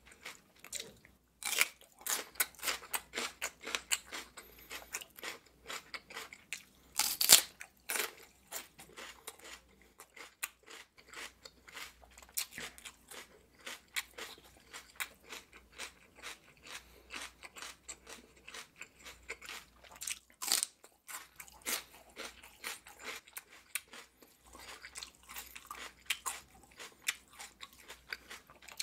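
Raw celery stalk being chewed: a steady run of crisp crunches, with two louder crunches about seven seconds in and about twenty seconds in.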